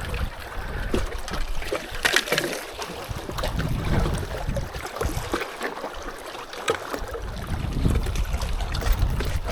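Gusty wind buffeting the microphone in uneven rumbling swells, with water trickling and lapping and scattered short clicks and taps of handling.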